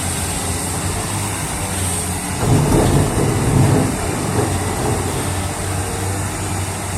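Excavator engine running with a steady low hum and a rushing noise, swelling louder for about a second and a half midway through.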